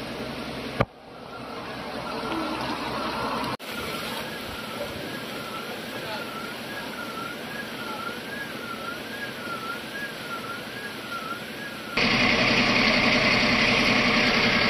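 Floodwater rushing through a street, an even hiss, with a faint siren wavering up and down in pitch through the middle. About twelve seconds in the sound jumps louder as a fire engine's running engine joins the water noise.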